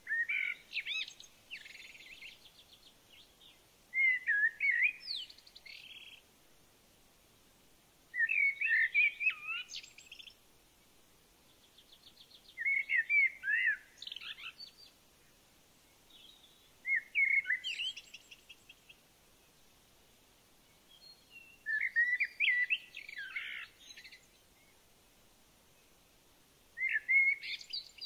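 A songbird singing, repeating a short phrase of quick whistled notes and trills about every four to five seconds, seven times.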